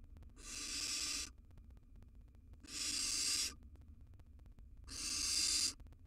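Barn owl nestlings giving their rasping, hissing 'snore' calls, the sound barn owl young make to beg for food. Three breathy hisses, each just under a second long, come about two seconds apart.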